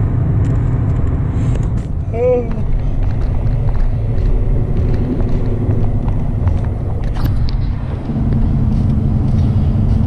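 Car driving, heard from inside the cabin: a steady low rumble of engine and road noise. About two seconds in there is a short wavering pitched sound, and faint small clicks and rattles come through now and then.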